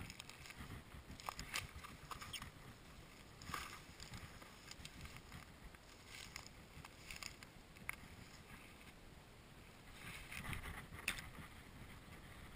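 Faint, irregular rustling and crackling of dry reeds and beach grass brushing past as someone walks through them.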